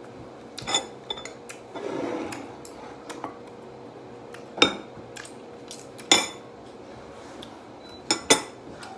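Metal spoon and fork clinking against ceramic plates and bowls while eating: a handful of sharp clinks a second or more apart, with two in quick succession near the end.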